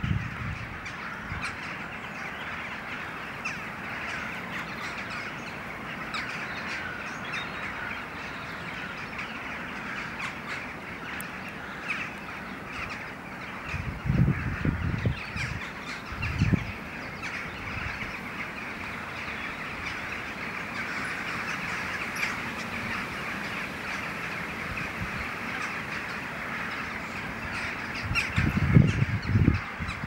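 A large flock of common starlings chattering together in a continuous, dense wash of calls. Low rumbling bursts break in about halfway through and again near the end.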